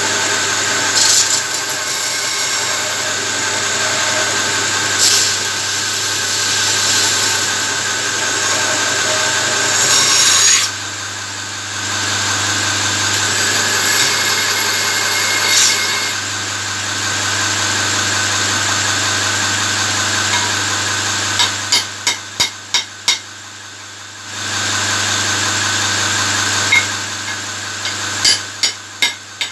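Belt grinder's electric motor humming steadily while a forged steel spear head is ground against the abrasive belt, a rough rasping hiss that eases off and comes back as the blade is lifted and pressed again. About two-thirds of the way through and again near the end come quick runs of sharp knocks, about four a second.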